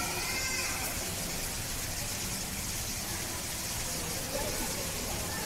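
Steady outdoor hiss with faint human voices at the start and again near the end.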